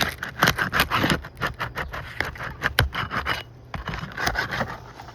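Scraping and crackling of asphalt roof shingles being worked loose by hand or tool, with many sharp clicks. It is busiest for the first three and a half seconds, then comes a short pause and another brief burst.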